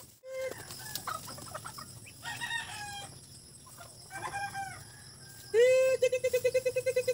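Native chickens and ducks calling as they are fed, with a rooster crowing. Two short calls come about two and four seconds in, and a loud, rapidly pulsing call starts near the end.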